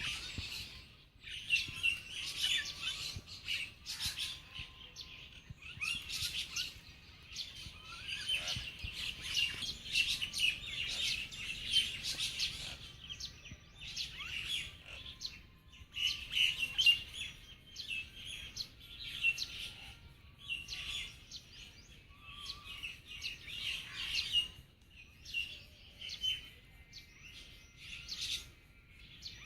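Several small birds chirping busily, many short high calls overlapping one another, growing sparser near the end.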